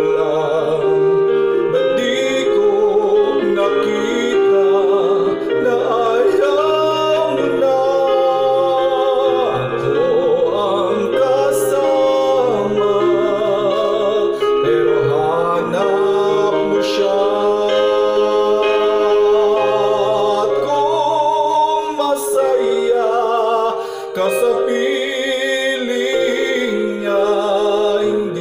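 A man singing a ballad into a handheld karaoke microphone over instrumental backing music.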